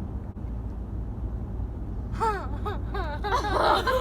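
Low steady rumble of a moving car's cabin; about halfway through a girl starts making a silly wavering vocal noise, her voice swooping up and down in pitch in short repeated arcs and growing louder toward the end.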